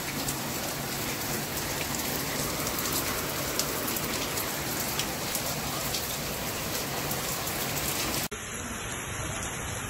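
Steady rainfall: an even hiss with scattered sharp ticks of drops hitting surfaces. A brief dropout about eight seconds in, after which the rain carries on.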